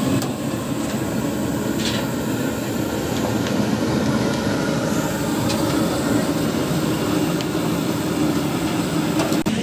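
Steady noise of a street-stall frying station, with large woks of oil deep-frying fish, and a few faint clinks of metal utensils.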